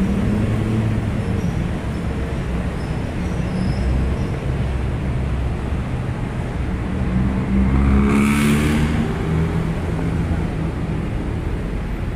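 City street traffic: a steady rumble of car engines. About eight seconds in, one vehicle passes louder, its engine note rising and falling, with a short rush of hiss.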